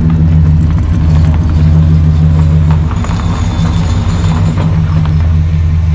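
Engine of a 1971 Chevy C30 truck running steadily with a deep, even rumble.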